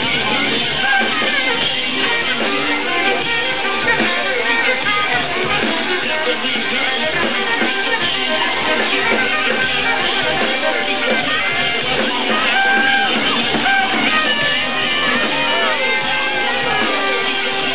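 Live electronic dance music from a saxophone-and-drums duo playing over electronic production, loud and steady, with sliding, falling melody notes in the last few seconds. The recording is dull, lacking both the top end and the deep bass.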